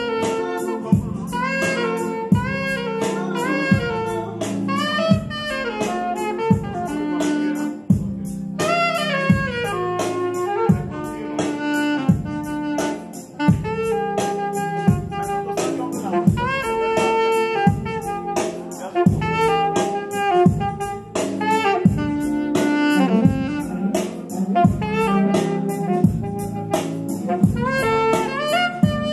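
Saxophone playing fast, melodic jazz-gospel runs over a drum kit keeping a steady beat.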